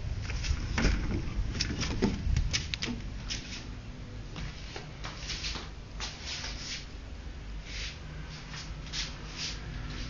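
Handling noise from a handheld camera being carried through the rooms: rustles, small clicks and knocks over a low rumble, with the loudest knocks about one and two seconds in.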